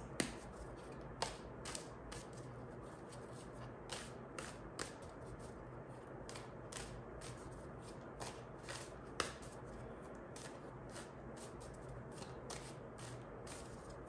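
A deck of tarot cards being shuffled by hand: a steady run of soft, irregular card clicks and flicks, with a few sharper snaps standing out.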